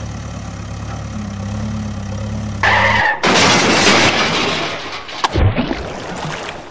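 A steady engine hum, then a sudden loud crash and about two seconds of rushing, splashing noise as a toy tipper truck carrying a toy backhoe loader topples off a rock ledge into water. Another sharp splash follows near the end.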